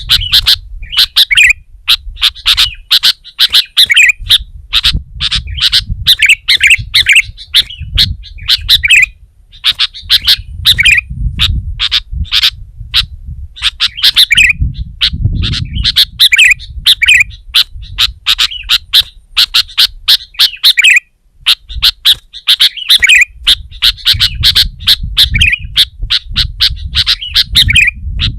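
Sooty-headed bulbul singing loudly and incessantly in short, repeated chirping phrases, full of sharp clipped notes, with a low rumble underneath.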